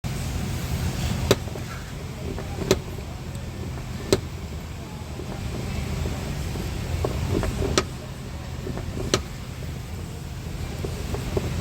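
Ford Explorer door being swung open and shut, its worn door checker giving five sharp clunks, mostly about a second and a half apart, with faint squeals before some of them. A steady low rumble runs underneath.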